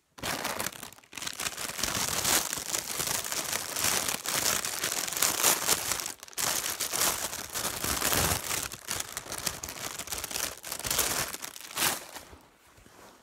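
Plastic packaging crinkling and rustling close to the microphone, on and off, with short breaks about a second in and around six seconds.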